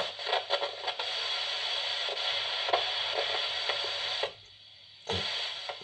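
An AM broadcast picked up by a germanium crystal diode radio and played through a small IC amplifier. The sound is thin and hissy, with no deep bass and little treble, and it cuts out for about a second near the end before coming back.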